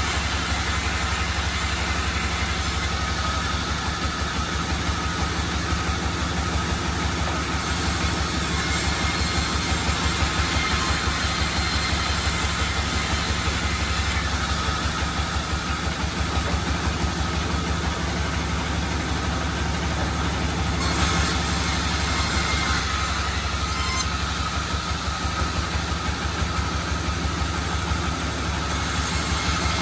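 Sawmill machinery running steadily: a constant low, fast throb with an even hiss over it. The hiss shifts in level several times.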